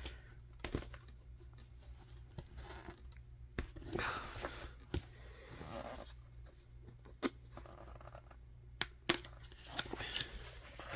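Handling noise from a cardboard board book: rustling and scraping as it slides over crinkled paper, with scattered sharp clicks and taps of the card pages and tab, and a longer rustle about four seconds in.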